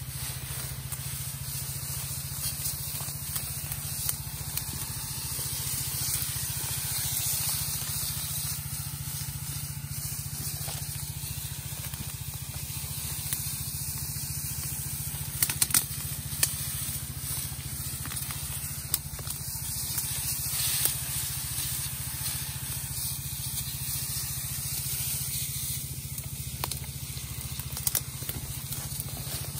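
Pressurised herbicide spray hissing steadily from the nozzle of a hand-held spray lance, over a steady low hum from the sprayer's small petrol engine and pump. A few sharp crackles of leaves and stems come midway.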